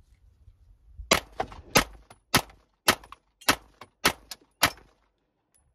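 Seven 9mm pistol shots from a Smith & Wesson M&P9 Metal Carry Comp, fired at a steady, fairly quick pace of a little under two shots a second, starting about a second in.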